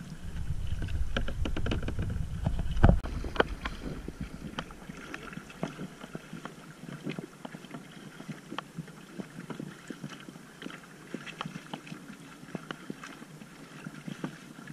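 Double-bladed paddles of a sit-on-top kayak dipping and splashing in the water, with dripping and light clicks on and off. Wind rumbles on the microphone for about the first three seconds, ending in a loud thump.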